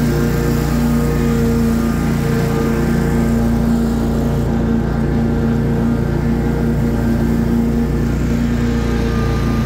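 Stand-on lawn mower's engine running steadily as it mows.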